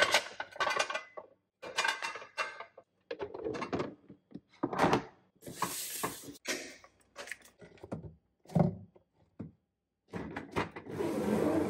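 Sandwich-maker plates and a plastic storage box being handled: light knocks and clatters as the plates go into the box, a thud, and a scrape as the box slides. Near the end comes a longer scraping slide as the sandwich maker is moved on the shelf.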